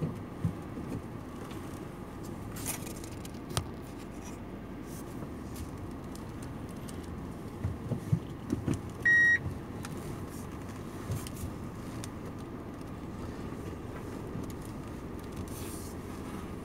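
Car driving on a rough rural road, heard from inside the cabin: a steady low engine and road rumble, with scattered knocks and rattles. A short electronic beep sounds about nine seconds in.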